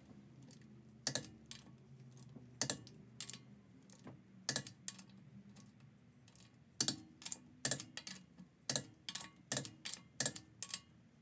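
Torque wrench clicking sharply on the lug nuts of a 2007 Honda Civic Si front wheel as they are tightened to 75 ft-lb. The clicks come one by one and in short runs, irregularly spaced.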